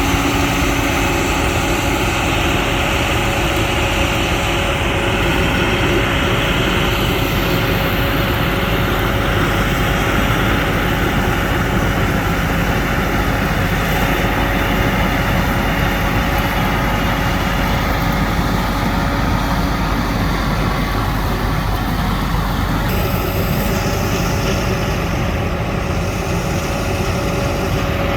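John Deere 9500 combine harvester running steadily, a loud even drone with a few held tones over it.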